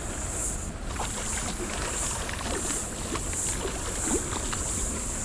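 Water lapping and splashing around a small fishing boat, with scattered small splashes and clicks as a hooked bream is brought in. A steady high hiss swells and fades about every 0.7 seconds behind it.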